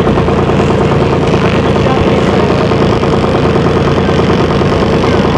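Passenger boat's engine running steadily at an even speed, a constant drone with a strong steady hum.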